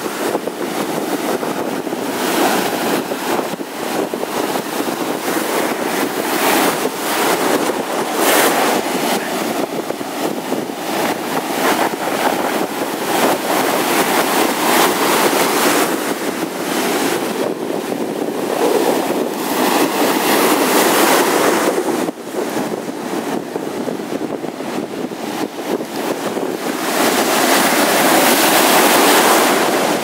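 Baltic Sea surf breaking and washing up over a sandy shore, a steady rushing hiss that swells and ebbs with each wave, loudest near the end.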